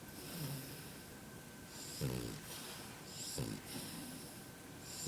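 French bulldog puppy snoring: a faint snore near the start, then two stronger snores about two and three and a half seconds in, with soft breathing between.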